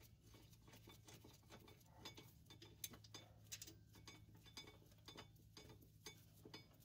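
Faint, scattered light clicks and ticks of a rear brake caliper bracket bolt being turned out by hand, over a low steady hum.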